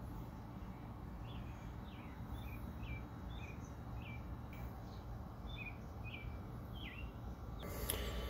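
A bird chirping faintly: a string of about ten short, high chirps that slide downward, over a low steady background hum. Near the end a brighter hiss comes in.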